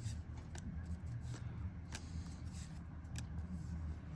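Trading cards being flipped through by hand, with a few light sharp clicks and snaps of card stock, over a steady low hum.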